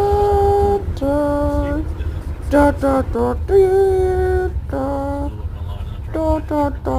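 A voice singing or humming a slow melody in long held notes, broken into short phrases, over a steady low rumble.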